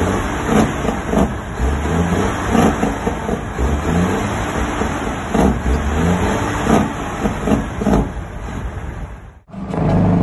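Diesel semi-truck engine noise that rises and falls unevenly. About nine seconds in it cuts off abruptly and gives way to a steady engine drone heard from inside a truck cab.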